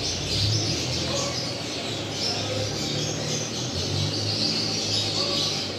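Many small birds chirping continuously over the steady hiss of aquarium water and aeration.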